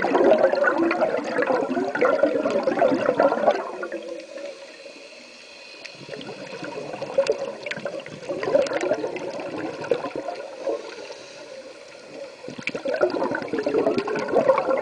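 Scuba regulator exhaust bubbles gurgling underwater in bursts as divers breathe out. The bubbling is loud at the start and again in the last couple of seconds, with a quieter lull a few seconds in and softer bubbling between.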